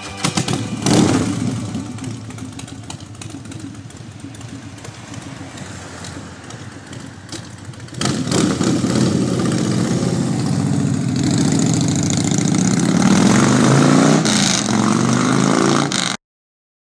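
Outdoor background noise, then from about halfway a small underbone motorcycle's single-cylinder engine running and revving, a little louder near the end, cutting off abruptly.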